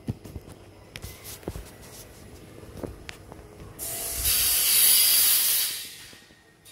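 Operating-system startup sound effect: scattered soft clicks and low thumps, then about four seconds in a loud hissing rush that swells, holds and fades away over about two seconds.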